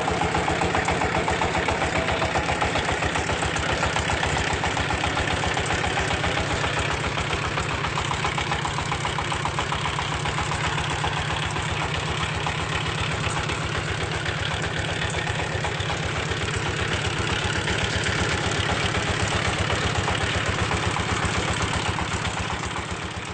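Engine of a red-brick moulding machine running steadily, with a fast, even beat.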